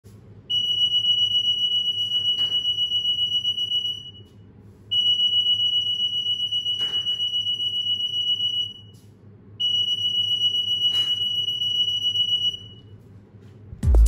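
EAS anti-theft security gate alarm sounding three times, each a long, steady, high-pitched beep of about three and a half seconds with short gaps between, set off by a security tag at the gate.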